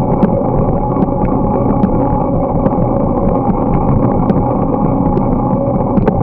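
Riding noise of a bicycle on a paved path: a steady rumble of wind on the microphone and tyres on the pavement, with irregular light clicks and rattles.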